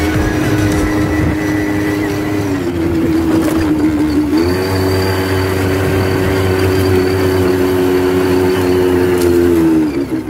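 Quad bike (ATV) engine running at a steady throttle. Its pitch dips about a quarter of the way in, rises again, and falls off near the end.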